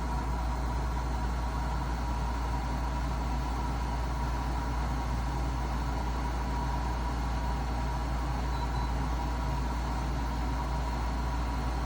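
Portable air conditioner running steadily: a constant low compressor hum with a fan's airy rush and a faint steady whine above it.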